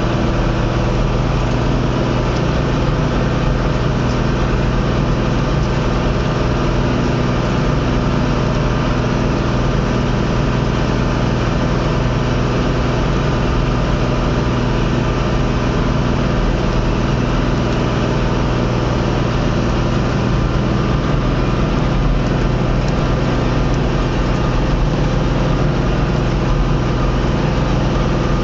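Tractor diesel engine running steadily under load, pulling a disc harrow through the soil at an even engine speed.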